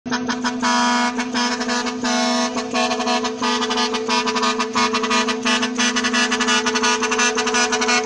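A truck's air horn held in one long steady tone, with the approaching truck's road noise underneath.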